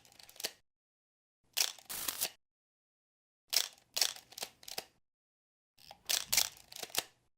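Film projector sound effects: four short bursts of rapid mechanical clicking and crackle, each cut off abruptly to silence, the longest about a second and a half.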